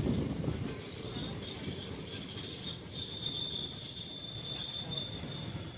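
Insects droning: a loud, steady, high-pitched buzz with a few faint chirps in the first seconds, dipping briefly near the end.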